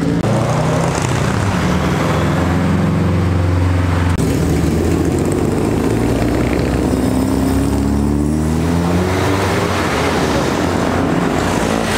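Tuned Japanese sports-car engines and exhausts driving off one after another. A steady low engine note gives way about four seconds in to another car whose note climbs and then drops as it accelerates past.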